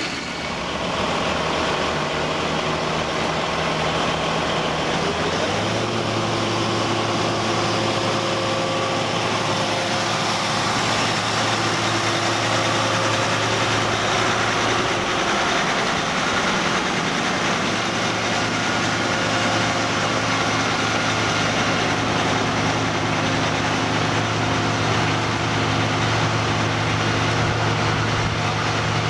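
Diesel engines of a John Deere 7450 self-propelled forage harvester and a John Deere tractor running, a steady deep engine hum whose pitch steps down about five seconds in.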